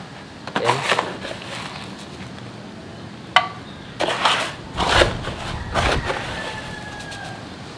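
Slotted plastic litter scoop digging and sifting through granular cat litter in a plastic litter box: a series of short, irregular gritty scrapes and rustles, with one sharp click about three and a half seconds in.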